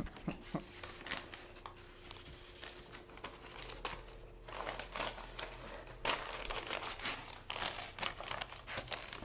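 A paper bag crinkling and rustling in irregular bursts as a German Shepherd works at it to get at the treats inside.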